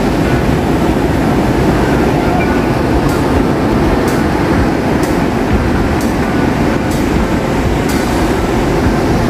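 Steady, loud rumbling noise of surf and wind on the phone's microphone. From about three seconds in, faint ticks come about once a second.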